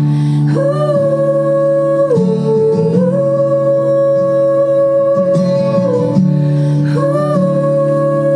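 Music: a pop ballad playing, with long held sung notes gliding between pitches over guitar accompaniment.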